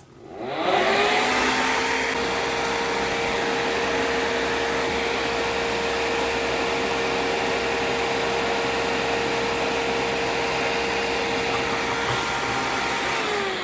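The fan of a 3D-printed fume extractor, run through a PWM fan controller, spins up about half a second in. It runs steadily with a rushing airflow and a whine, then spins down near the end.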